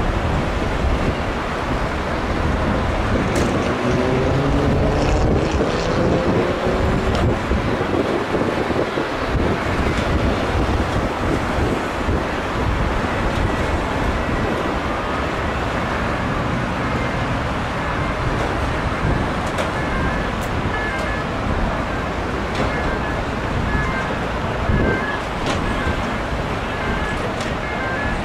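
Steady motorway traffic noise from passing vehicles, with wind buffeting the microphone. A few seconds in, one vehicle's engine rises in pitch as it goes by, and faint short high beeps come and go in the second half.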